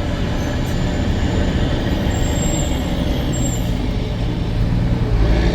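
Scania 4-series truck's diesel engine running as the truck drives, a steady low note that grows louder near the end as the engine pulls harder.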